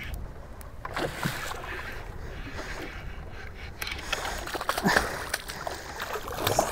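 A small hooked lake trout splashing at the surface beside the boat as it is reeled in, over low wind rumble and lapping water.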